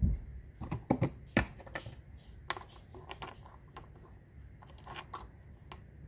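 Rummaging through plastic Lego pieces by hand: a knock at the start, then a scatter of clicks and rustles, busiest in the first second and a half.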